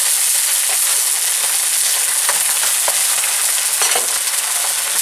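Onion, garlic and canned tomatoes sizzling in olive oil in a wok, a steady hiss, while a utensil stirs them, knocking lightly against the pan a few times.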